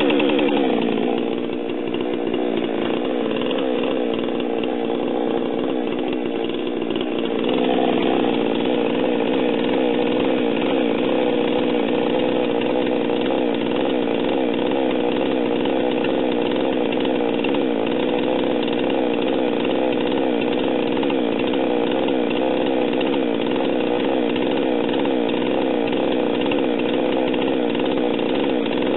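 Stihl MS 462 two-stroke chainsaw engine catching on the pull-start and running steadily at fast idle with the control lever on choke and no throttle. This is the first step of resetting its electronic fuel-metering controller. The engine note shifts and runs a little louder from about eight seconds in.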